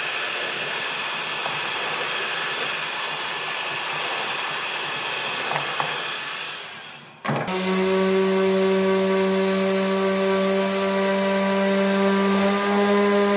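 Electric heat gun blowing steadily on a cricket bat's face, dying away about six to seven seconds in. Then a random orbital sander starts abruptly and runs with a steady hum on the bat's bare willow.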